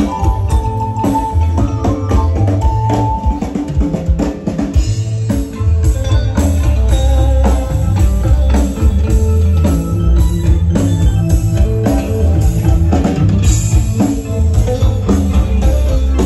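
Live dance band playing loud through big PA speakers, with a drum kit and an electric guitar over a heavy bass.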